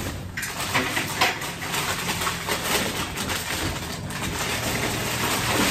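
Packing paper rustling and crinkling in quick, irregular bursts as items are dug out of a cardboard box and unwrapped.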